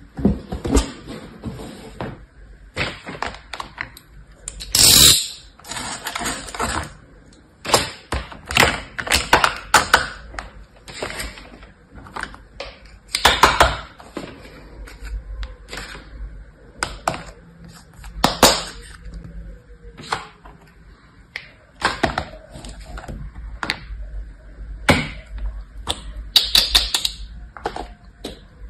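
Plastic sand moulds and toys being handled in a plastic tub of kinetic sand: irregular clicks and knocks as they are lifted out, set down and tapped against the tub and each other, with a few longer scrapes.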